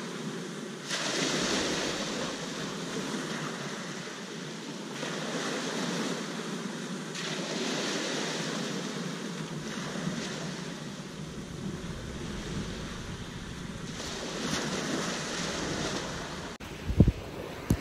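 Small waves breaking and washing up a shingle beach, swelling every few seconds, with wind on the microphone. A sharp thump near the end.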